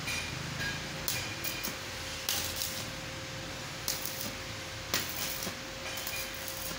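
Stick (arc) welding tack welds on a stainless-steel square-tube frame: a series of short crackling, hissing bursts as the arc is struck and broken at each joint. A steady hum runs underneath.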